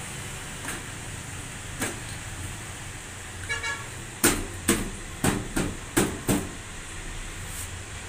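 A quick run of tiny ticks, then about six sharp plastic clicks and knocks over two seconds, from the program-selector knob and control panel of a front-load washing machine being handled as the knob is worked off its press-fit timer shaft.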